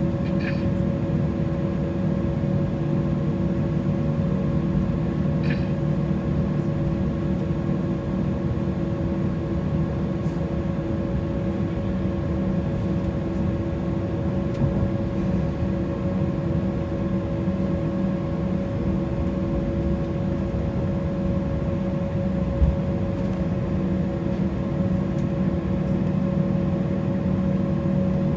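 Steady cabin drone of an Embraer E190 airliner with its engines running, a constant rumble carrying several held humming tones that neither rise nor fall. A couple of faint clicks and a short knock about three quarters of the way through.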